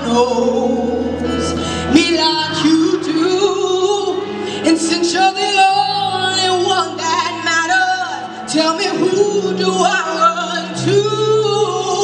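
A solo vocalist singing into a handheld microphone over accompanying music with long-held bass notes.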